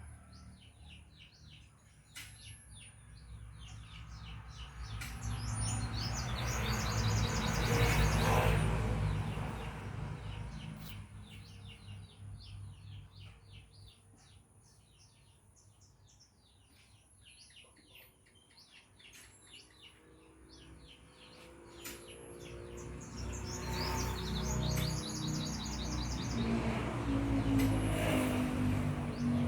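Many birds chirping and trilling at dawn, with fast runs of short high notes. A rushing noise with a low rumble swells and fades twice, about eight seconds in and again near the end.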